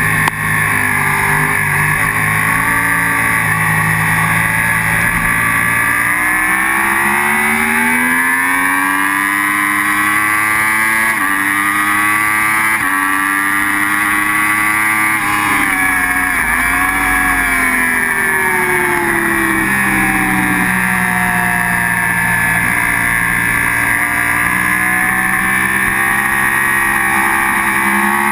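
Sport motorcycle engine at track pace, heard from an onboard camera with wind rushing over the microphone. The revs hold steady at first, then climb with two quick upshifts partway through, fall away, and climb again near the end.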